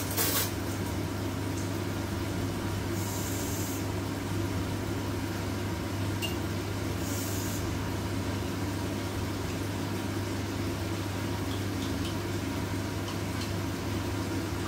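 Pan of pork and onion gravy simmering at a low boil under a steady low hum. Two brief hissing spells come about three and seven seconds in.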